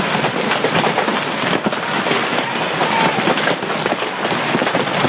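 Large hailstones and rain pelting down in a hail storm: a dense, unbroken clatter of countless impacts.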